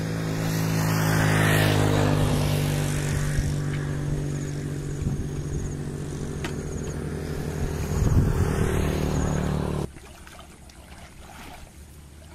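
An engine running steadily at an even pitch, which cuts off abruptly about ten seconds in and leaves a much quieter background.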